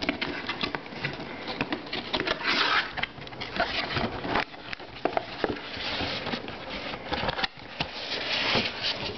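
A toy box and its plastic packaging being opened by hand: irregular rustling and scraping with scattered clicks and knocks, in louder bursts about two and a half seconds in and again near the end.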